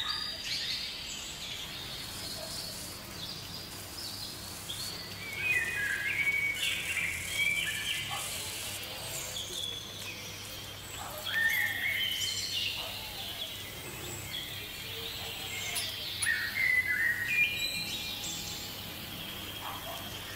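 Birds chirping and calling: many short whistled notes and quick pitch glides in clusters, over a faint steady hiss.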